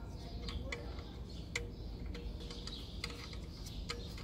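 Scattered light clicks and ticks, unevenly spaced, as the drain plug with its new gasket is threaded by hand into the CVT's steel oil pan.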